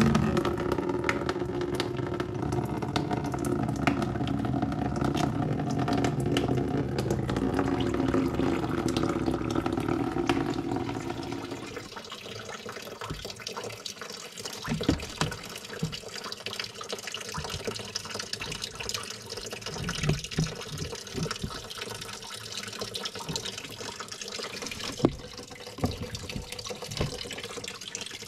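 Engine coolant draining from an opened radiator drain tap and splashing into a container below. A steady, full stream for about the first twelve seconds, then it thins to a weaker trickle with scattered drips and a few sharp knocks.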